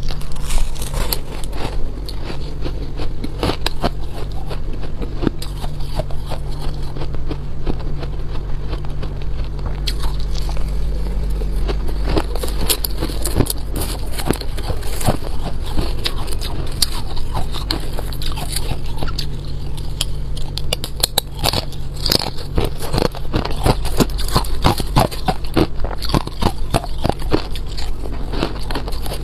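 Freezer frost being bitten and chewed, a dense run of small crunches and crackles that gets busier about a third of the way in. A wooden spoon scrapes more frost from a plastic tub between mouthfuls, over a steady low hum.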